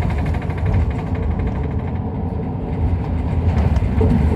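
Cabin noise of an Isuzu Erga Mio diesel bus: a steady low engine drone with road rumble, and a rapid fine ticking in the first second and a half.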